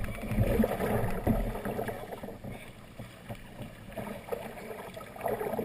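Kayak being paddled up a small rapid: water splashing and rushing against the hull and paddle blades, with a few sharp knocks. It is loudest and most rumbling in the first second and a half, settles into a softer rush of water, then swells again near the end.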